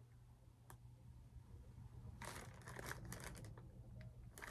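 Mostly quiet, then from about two seconds in, faint crinkling and light clicks as small rack parts and their packaging are handled.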